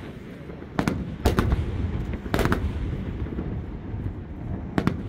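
Aerial firework shells bursting: sharp booms about a second in, a close pair around two and a half seconds and another pair near the end, with a low rumble of echoing reports between them.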